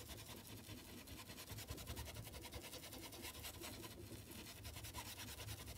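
Paintbrush bristles rubbing over fabric in quick, faint, repeated scratchy strokes as paint is worked into the cloth, over a low steady hum.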